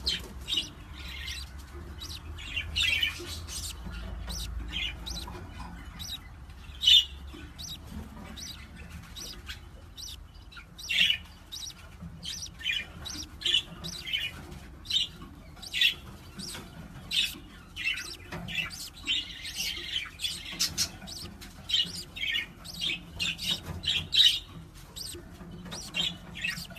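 A parrot chirping and squawking over and over in short, separate calls, with a louder call about seven seconds in.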